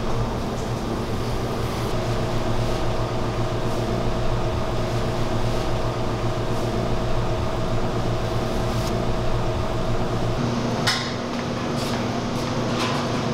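Restaurant kitchen background: a steady hum of ventilation or refrigeration machinery, with an occasional clink and a sharp click about eleven seconds in.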